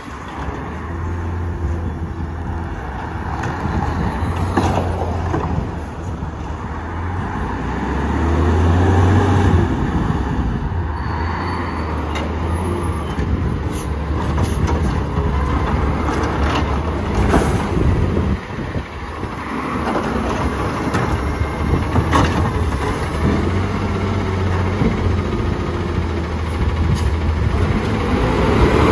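McNeilus ZR automated side-loader garbage truck's diesel engine running as the truck pulls up to the curb carts, revving up twice as the hydraulics work. Several sharp knocks and bangs from the carts and the body come through along the way.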